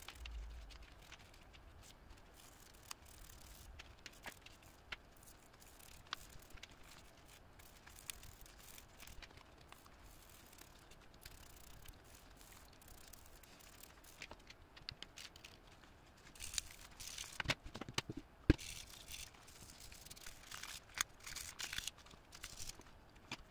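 A toothbrush scrubbing small plastic relay parts wet with isopropyl alcohol to clean off grime, with light clicks as the parts are handled on the bench. The scrubbing gets louder and more frequent from about 16 seconds in, with one sharp tap a couple of seconds later.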